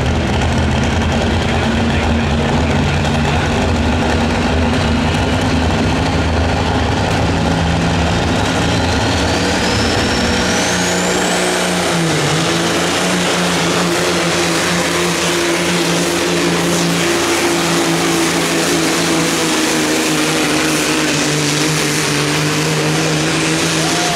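Mack semi tractor's diesel engine running flat out under load as it pulls a weight-transfer sled, black smoke pouring from the stack. A high whine rises from about eight to eleven seconds in and then holds steady, and the engine note shifts about ten seconds in.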